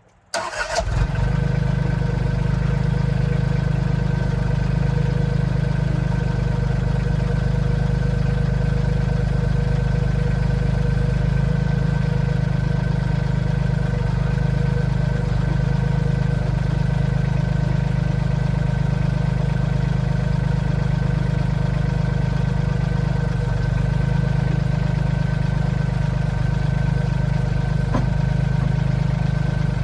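A large engine starting abruptly and idling steadily, most likely the backhoe's engine, running at an even idle with a deep low hum. There is one faint click near the end.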